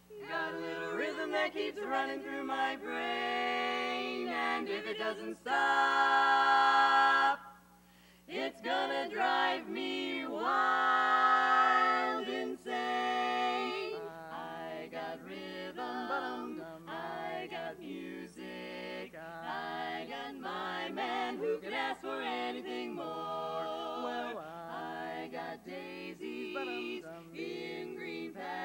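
Women's barbershop quartet singing a cappella in four-part harmony (tenor, lead, baritone, bass). The first half is loud held chords with a brief break about seven and a half seconds in; from about halfway the singing turns quieter, with short, clipped rhythmic notes.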